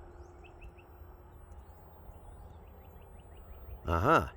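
Faint outdoor ambience: a low steady background hum with soft, rapid chirping repeated several times a second. Near the end a man makes one short wordless vocal sound that rises and falls in pitch.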